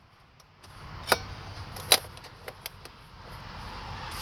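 A few light clicks and knocks, the two loudest about a second and two seconds in, with a couple of softer ticks after.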